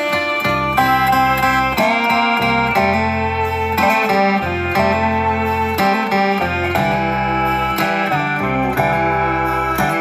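Instrumental background music led by a plucked guitar melody over a sustained bass line.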